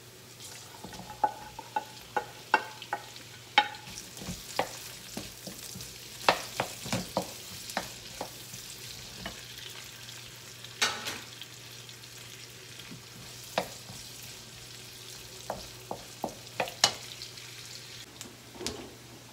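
Chopped red onion and garlic sizzling in hot oil in a nonstick wok, with a wooden spatula clicking and scraping against the pan now and then as it stirs.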